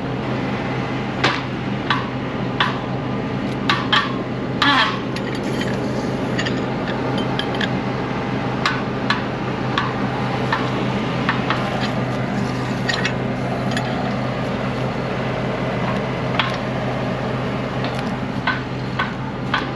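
Machinery running steadily with a low hum, while sharp metallic clicks and clinks come at irregular moments, several close together about four to five seconds in. This accompanies the planter being filled and drawing material in.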